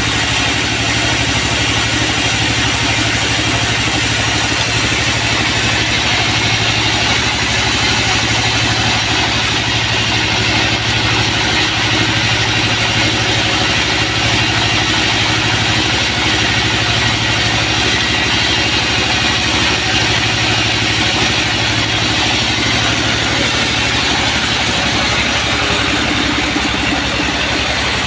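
Band sawmill running steadily: a constant low motor hum under a dense hiss.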